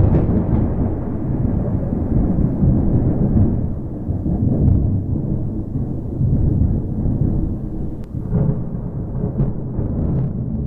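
Thunder rumbling, a long deep rolling peal that rises and falls in waves, with a few sharp cracks near the end.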